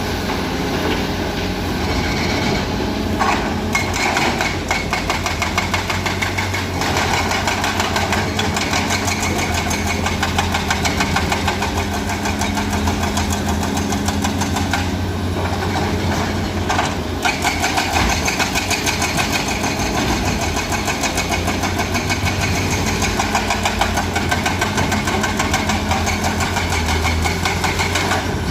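Caterpillar 336D excavator's six-cylinder diesel engine running steadily while it works, with a few short knocks along the way.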